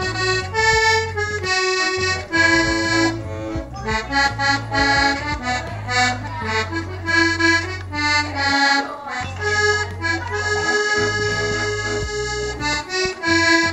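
Button accordion played live: a quick melody of notes on the right-hand treble buttons over steady low bass notes, the bass dropping out briefly about two-thirds of the way through.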